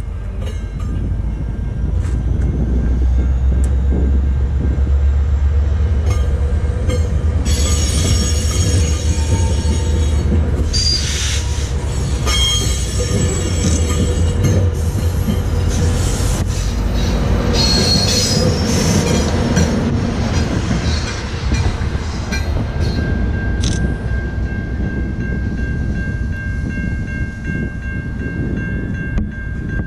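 GO Transit bilevel passenger coaches rumbling past on the rails. From about a quarter of the way in until about two-thirds through, the wheels squeal shrilly against the rail. The sound eases as the train moves away near the end.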